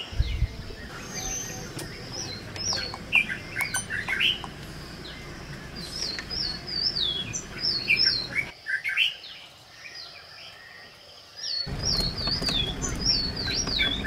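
Songbirds chirping in repeated short, high whistled phrases that slide downward, over the low rumble of a vehicle that drops away for about three seconds in the middle.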